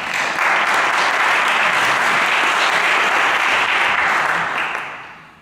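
Audience applauding loudly and steadily, then dying away near the end.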